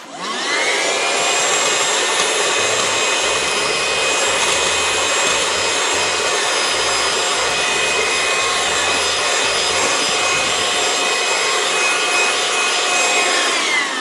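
Cordless handheld car vacuum (Loftek) switched on, its motor whining up to speed within about half a second. It then runs steadily, a high multi-tone whine over rushing air, as its crevice nozzle sucks crumbs from a carpeted floor mat. The whine drops in pitch as it winds down right at the end.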